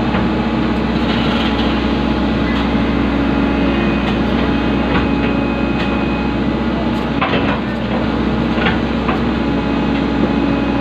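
Hydraulic excavator's diesel engine running steadily, heard from inside the operator's cab as the bucket works a concrete culvert section into place, with a few scattered light knocks and clicks.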